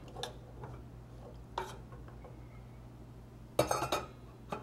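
A metal spoon clinking a few times against a stainless steel saucepan while stirring. About three and a half seconds in comes a louder clatter as the pan's metal lid is set back on, with one last clink near the end.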